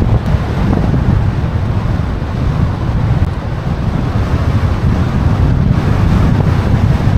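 Strong wind buffeting the microphone: a loud, gusting low rumble with no clear tones.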